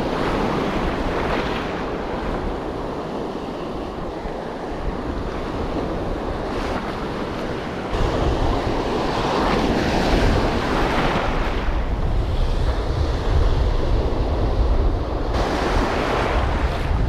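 Surf breaking and washing in, swelling every few seconds, with wind rumbling on the microphone that grows heavier about eight seconds in.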